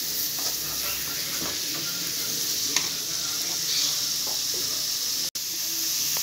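Sliced onions sizzling as they sauté in hot coconut oil in a metal kadai, with occasional scrapes and taps of a wooden spatula stirring them. The sound breaks off for an instant a little past five seconds in.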